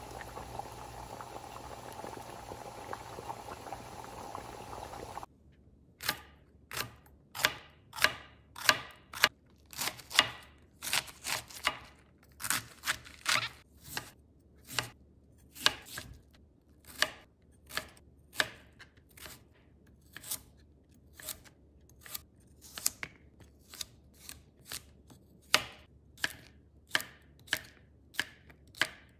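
About five seconds of water boiling in a pot with glass jars being sterilised in it, a steady hiss that stops abruptly. Then a kitchen knife slices daikon radish and cucumber on a plastic cutting board, sharp cuts about twice a second.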